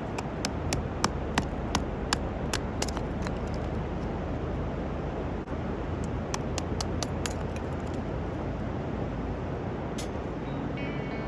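A run of sharp, evenly spaced clicks, about three a second, over a steady rushing noise, with a second faster run of clicks a few seconds later.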